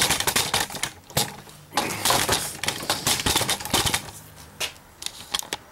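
Irregular clicks, knocks and rustling: handling noise from a camcorder being carried and set in a new position, with clothing brushing against it.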